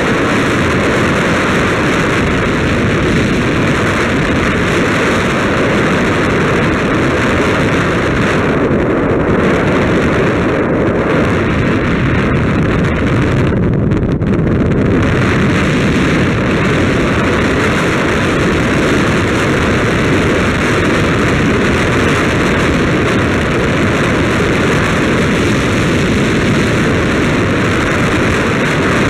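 Steady, loud rush of wind over the microphone of a camera mounted on a moving ride along a paved road, mixed with road and tyre noise.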